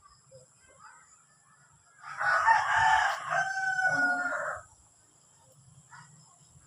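A rooster crows once, starting about two seconds in and lasting about two and a half seconds, ending on a long held note that falls slightly.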